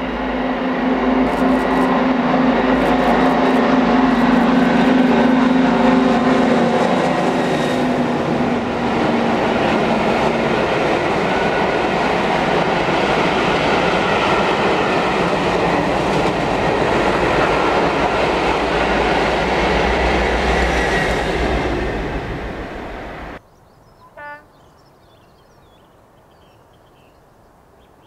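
A Class 55 Deltic diesel locomotive passing at speed with a train of coaches: the steady drone of its Napier Deltic engines for about the first ten seconds, then the rumble of the coaches' wheels on the rails. The sound cuts off suddenly about 23 seconds in, leaving quiet background with one brief chirp.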